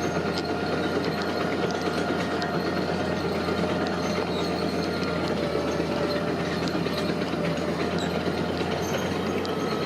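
Heavy construction machinery running steadily: a continuous engine hum with scattered light clicks and clanks.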